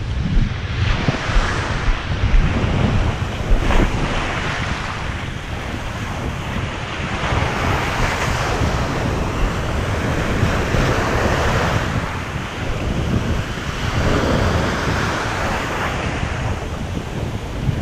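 Ocean surf breaking and washing up the beach, swelling and fading every few seconds, with wind buffeting the microphone as a low rumble.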